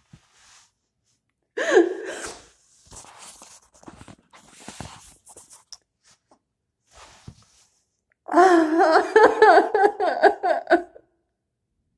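A woman crying: a short wailing sob about two seconds in, shaky breathing and sniffs, then a longer run of broken, wavering sobs from about eight seconds in.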